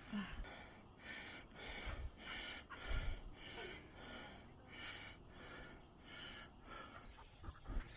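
A hiker breathing hard on a steep uphill climb, in quick, regular breaths in and out. A couple of dull knocks come about three seconds in and near the end.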